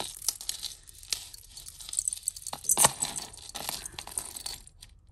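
Jewellery being handled and sorted: small metal pieces and beads clinking and rattling against each other in a run of light chinks, with one sharper clink a little under three seconds in.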